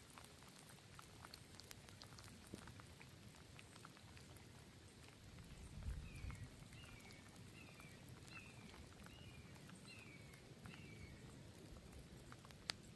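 Faint light rain, with scattered small ticks of dripping drops. In the middle a bird calls a series of about seven short falling notes.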